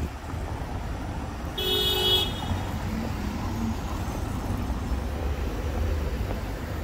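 A car horn gives one short toot about one and a half seconds in, over a steady low rumble of traffic and wind on the microphone.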